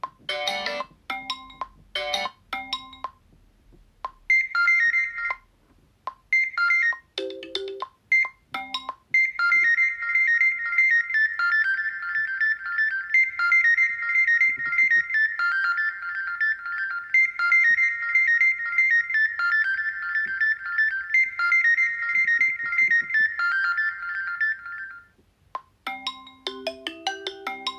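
Xiaomi Redmi 9A preset phone tones playing. A string of short chimes sounds first. Then a bright, high-pitched ringtone melody repeats steadily for most of the stretch and stops shortly before the end, when a lower, marimba-like tone begins.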